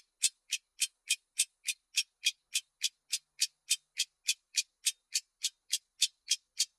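Clock ticking at an even, fast pace, about three and a half sharp, bright ticks a second.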